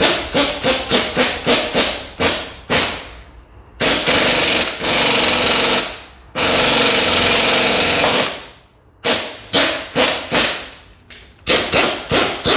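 Pneumatic impact wrench hammering on a driveshaft bolt, driving it in so that it presses the driveshaft out of the outer CV joint. It goes in short trigger bursts, then two longer runs of a couple of seconds each around the middle, then more short bursts near the end.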